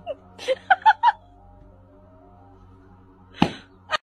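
A few short, high squeaks over faint background music, then a single loud, sharp pop about three and a half seconds in: a toy balloon bursting.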